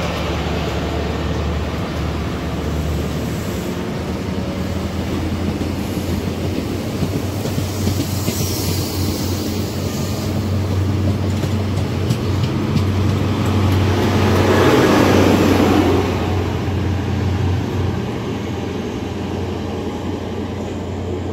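Class 43 High Speed Train moving past the platform: the steady hum of its diesel power cars under the rumble of the passing coaches, swelling about two-thirds through.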